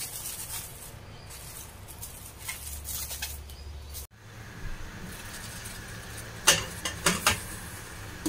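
Plastic cling film crinkling and crackling as it is stretched over a bowl by hand. Then, under a steady low hum, a few sharp clinks of metal and glass as the bowl goes into a stainless steel steamer pot and its glass lid is set on.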